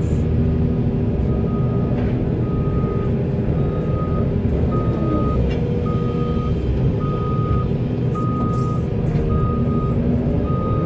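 Diesel engine of a large Volvo excavator running steadily, with a backup alarm beeping at about one beep a second from about a second in.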